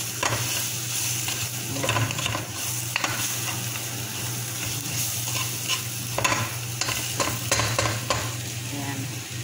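Chicken pieces sizzling in a nonstick pot as a wooden spatula stirs and turns them, with scrapes and light knocks of the spatula against the pot every second or so.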